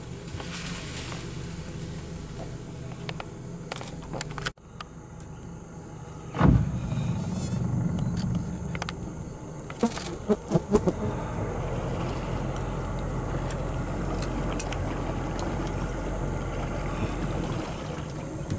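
An engine runs steadily with a low hum. A sharp thump about six and a half seconds in is the loudest sound, and a few short knocks come around ten to eleven seconds.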